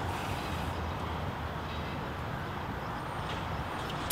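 Steady low background hum of room tone, with no spraying or other distinct event.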